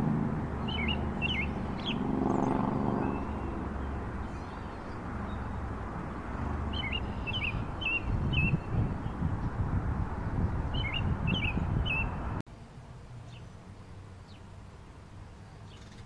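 American robin singing: three short phrases of clear, slurred whistled notes, over a low background rumble. About twelve seconds in the rumble drops away, leaving much quieter outdoor ambience.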